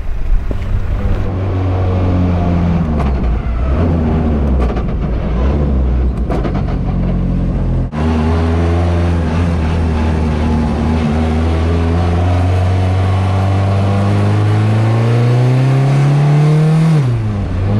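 BAC Mono's four-cylinder engine pulling on the road, its note heard from the open cockpit over wind rush. The revs rise and fall through the first half. After a cut the note holds steady, climbs through the revs, then drops sharply near the end.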